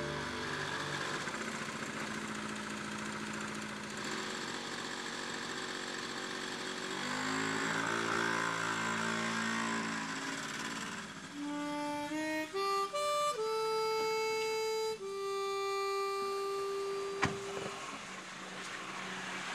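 Slow, soft background music: held chords for the first half, then from about halfway in a plain melody of long single notes.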